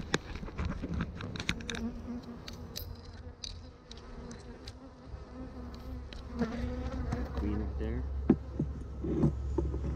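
Honeybees buzzing around an open hive, with single bees flying close past the microphone in the second half, their buzz rising and falling in pitch. Scattered clicks and knocks from the wooden hive boxes and hive tool being handled, mostly early on.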